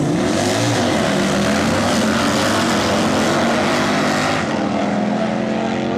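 Two V-twin drag-racing motorcycles launching hard off the line and running flat out down the strip. Their loud engine noise drops away after about four and a half seconds, leaving a steady engine idle.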